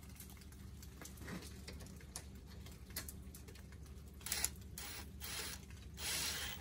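Cordless ratchet running in three short bursts, about four seconds in, again just after five seconds, and for about half a second near the end, as it drives in the brake line bracket bolt. Light clicks of the tool and socket between the bursts, over a faint low hum.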